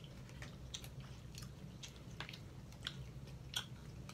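Eating sounds at the table: scattered sharp clicks and crackles of snow crab shell being cracked and peeled by hand, with chewing, over a low steady hum.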